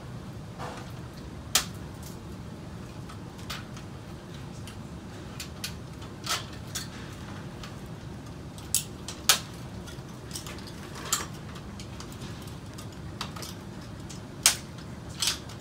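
Irregular sharp plastic clicks and taps as Cat6 network cables are handled and worked into a rack's patch panel, about seven louder clicks scattered among fainter ones, over a steady low hum.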